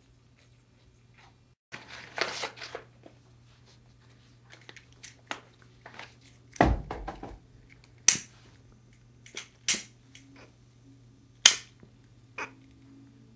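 A handheld cigarette lighter struck several times, giving a few sharp clicks in the second half, after rustling and one heavy low thud about halfway.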